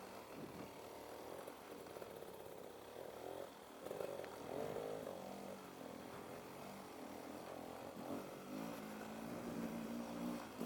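Faint off-road motorcycle engine running, its pitch rising and falling as it revs through the trail.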